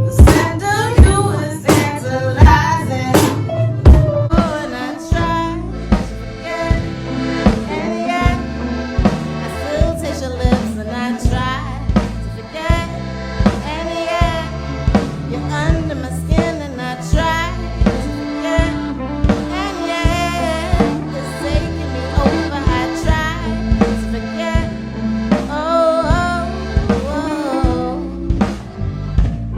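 A band playing: a drum kit keeps a steady beat under pitched instruments, loudest and fullest in the first few seconds.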